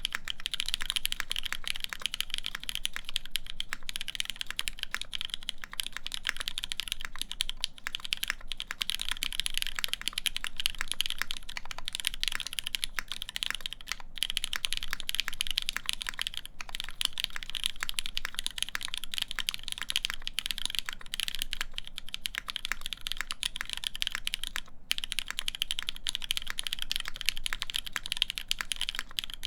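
Continuous fast typing on a mechanical keyboard with lubed Cherry MX Black linear switches on a full polycarbonate plate under Cherry-profile keycaps: a dense run of key strokes with only brief pauses.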